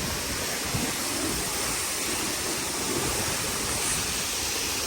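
Large waterfall's falling water: a steady, even rush of water noise.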